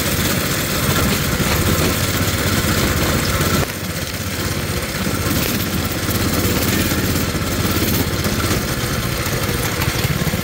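Coleman mini bike's small single-cylinder four-stroke engine running while riding, dropping a little in loudness about four seconds in and then carrying on steadily.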